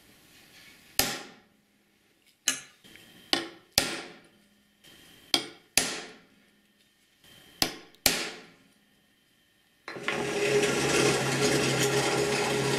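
Hammer tapping a center punch into steel clamped in a vise to mark hole positions: about eight sharp metallic strikes, mostly in quick pairs, each ringing briefly. About ten seconds in a drill press starts running steadily for 3 mm pre-drilling.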